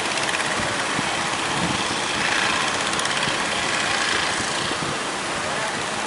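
Fishing boats' engines running steadily under the rush of surf and wind.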